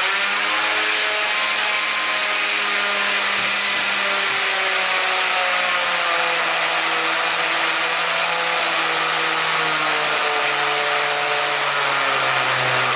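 Electric drill running continuously under load for about thirteen seconds, drilling a hole for a wall plug and screw; the motor's pitch sinks gradually as it works.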